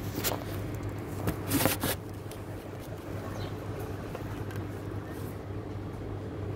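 Steady low background hum, with a few short noises in the first two seconds, the loudest a little under two seconds in.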